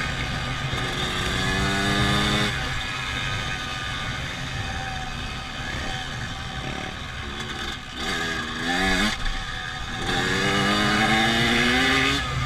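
Honda CRF250F's single-cylinder four-stroke engine running and being revved: it rises in pitch and drops back about a second in, again twice around eight to nine seconds in, and holds a longer rev from about ten seconds in.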